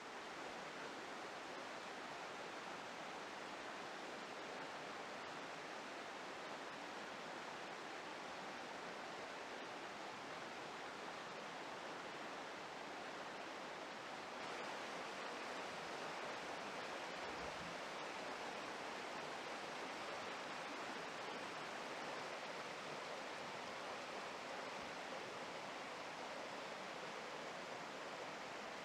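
Steady, even rushing noise with no distinct events, a little louder from about halfway through.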